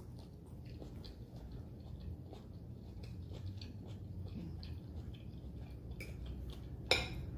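A person chewing a mouthful of seitan beef and broccoli stir fry with brown rice, with small wet mouth clicks throughout. There is a brief, louder click near the end.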